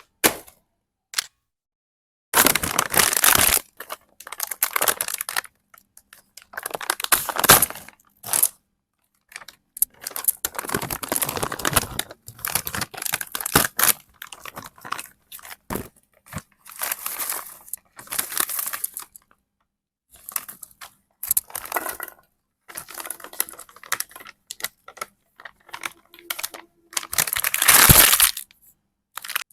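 Chip packets being torn open and crinkled: repeated bursts of tearing and rustling separated by short silences, the loudest burst near the end.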